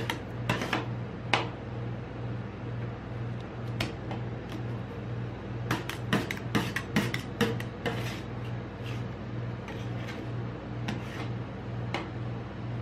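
Metal spatulas tapping, chopping and scraping on the frozen steel plate of a rolled ice cream machine as the ice cream mixture is worked, in irregular clusters of sharp clicks and knocks. A steady low hum runs underneath.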